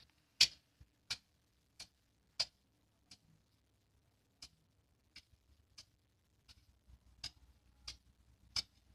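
A series of sharp clicks, about one every 0.7 seconds and varying in loudness, from fingers tapping on a smartphone screen.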